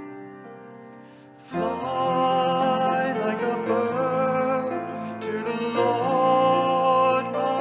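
Hymn music: a quiet piano passage, then about a second and a half in the music swells as a sung melody with vibrato enters over the accompaniment.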